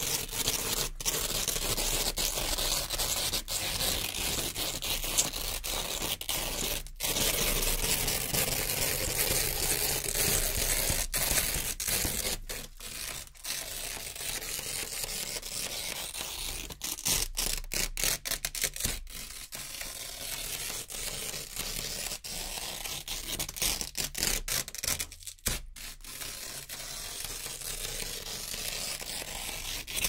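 Velcro (hook-and-loop) strips being peeled off a board one after another: a steady ripping broken by short gaps between pulls. It is a little quieter after about twelve seconds.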